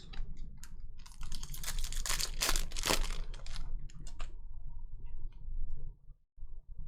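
Trading cards being flipped and handled: a dense run of clicking and rustling for a few seconds, thinning to scattered clicks near the end.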